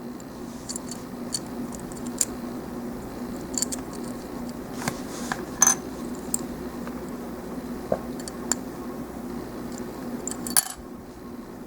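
Small plastic model-kit parts of a High Grade Gundam GP01 clicking and ticking as they are handled and pressed together, with sharper clicks near the middle and near the end, over a steady low hum.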